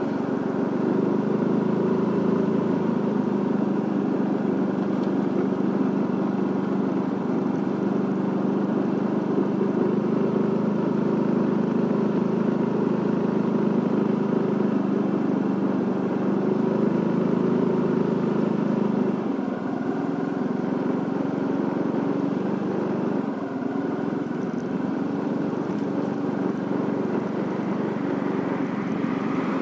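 Motorcycle engine running steadily at low speed, its note changing slightly a little past halfway.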